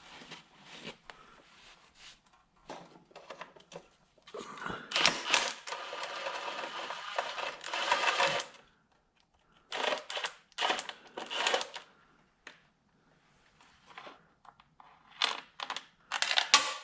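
Metal parts and hand tools clinking and scraping in irregular bursts, with a longer stretch of scraping about four seconds in and sharp clinks near the end.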